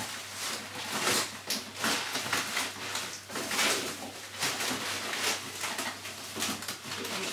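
Plastic trash bag and cardboard packaging rustling and crinkling as the packaging is crammed into the bag, in repeated bursts.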